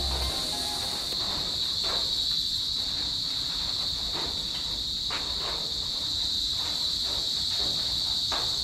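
Night chorus of crickets: a steady, unbroken high trill, with a few faint knocks in the background.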